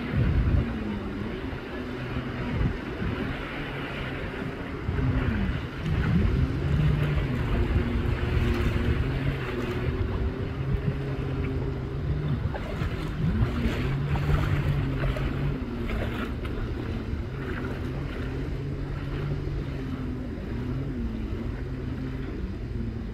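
Jet ski engine running at speed out on the water, its pitch rising and falling several times as the rider works the throttle, over wind on the microphone and lapping water.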